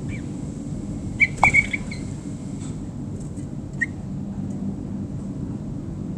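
Garden birds giving short chirping calls: one just at the start, a louder quick cluster between one and two seconds in, and a single note near four seconds. A steady low rumble runs underneath.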